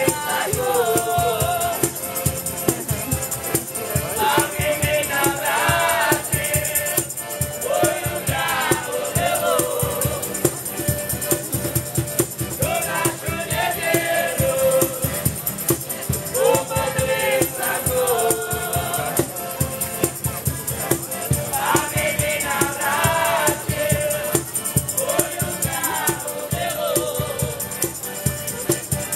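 A street band playing and singing: several voices singing together over a strummed acoustic guitar, a button accordion and a shaken tambourine, with a steady, quick beat and sung phrases every few seconds.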